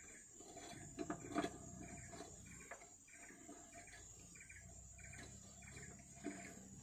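Faint clicks and knocks of an oil filter canister being fitted and turned by hand on a Nissan RE10 engine, the two loudest about a second in. Behind them, a faint chirp repeats two or three times a second.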